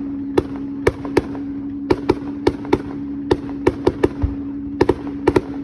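Fireworks display: sharp bangs and cracks of bursting shells, several a second in irregular clusters, over a steady low hum.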